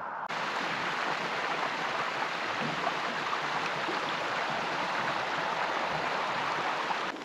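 Shallow rocky stream running, a steady rush of water that starts suddenly just after the beginning.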